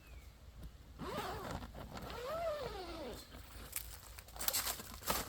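Shed door being opened: a drawn-out squeak that rises and falls in pitch for about two seconds, followed by a few sharp clicks and knocks near the end.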